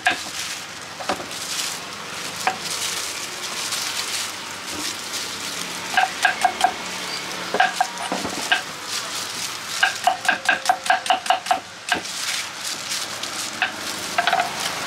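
Crinkle-cut knife chopping fresh fruit (pineapple, guava) on a wooden chopping board: quick runs of sharp chops at about six a second, each with a short metallic ring from the blade, in several bursts with a steady hiss between them.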